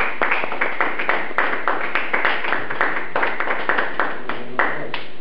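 Audience applauding, with separate hand claps audible at several a second; the clapping stops near the end.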